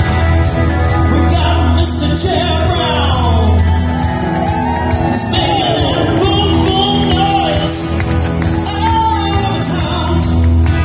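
A live rock band playing loudly with a male lead singer, electric guitar, drums and a heavy bass line. There is a long downward glide in pitch about three seconds in.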